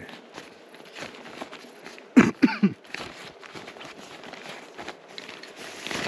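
A small gear bag being opened and rummaged through by hand: scattered rustling and light clicks of items being handled, a longer hissing rustle near the end. A man mumbles briefly about two seconds in.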